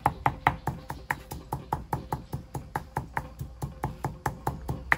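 Pestle pounding dried chilies in a mortar, a steady knocking at about five strikes a second.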